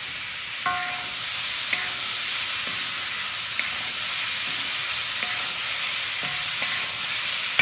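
Vegetables sizzling steadily in a hot wok as they are stir-fried with a wooden spoon, with light scrapes and taps of the spoon against the pan.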